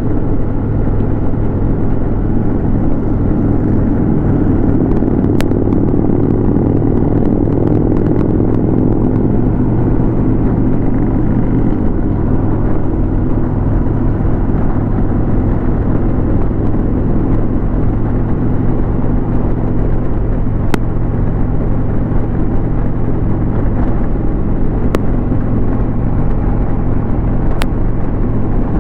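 Harley-Davidson Road King's V-twin engine running steadily at highway cruising speed, heard from the rider's seat with wind and road noise mixed in.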